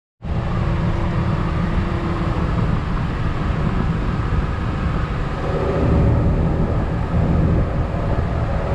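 John Deere 6125J tractor's diesel engine running steadily under load, together with the PTO-driven JF Double C-240 forage harvester chopping grass for silage, heard from inside the tractor cab.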